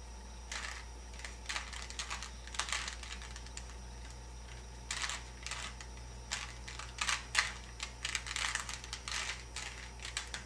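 Rubik's Cube layers being twisted by hand: quick runs of plastic clicks and clacks, with a pause of about two seconds near the middle.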